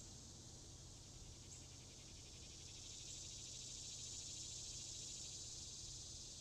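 Faint insect chorus: a steady, high-pitched rapid trilling that swells slightly about halfway through, over a low background rumble.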